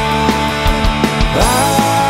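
Rock band playing a loud rock song: electric bass, drum kit and guitar with a sung voice. A note slides up and is held near the end.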